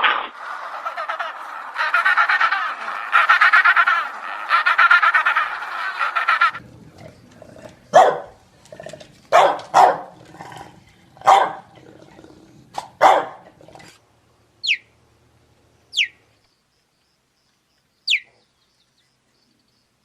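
Animal calls in three parts: a dense chattering chorus for the first six seconds or so, then five separate barks, then four very short high chirps, each falling in pitch, spaced a second or two apart.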